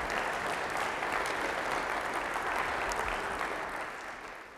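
Audience applauding steadily, beginning to fade near the end.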